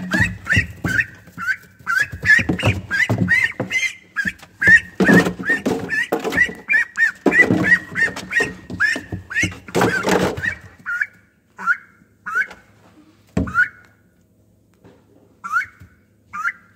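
A young duck, about five weeks old, giving rapid high-pitched peeps two to three times a second, with straw rustling and thumps as it scrambles away from a hand. After about eleven seconds the scuffling stops, leaving a few scattered peeps and a single knock.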